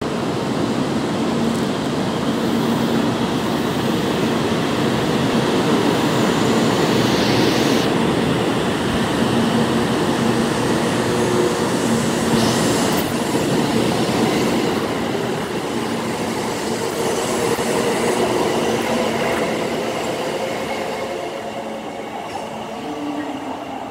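Kyushu Shinkansen 800 series train departing: a steady loud rush of running and wheel noise with a low hum, fading gradually over the last several seconds as it pulls away.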